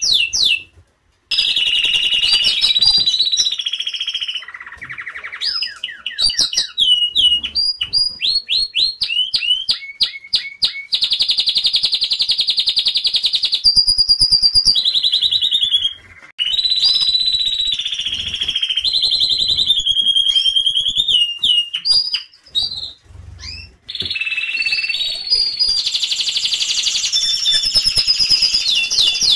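Domestic canaries singing a long, loud song of fast trills, quick runs of repeated notes and long rolling notes, with brief breaks about a second in, about halfway through and a few seconds later.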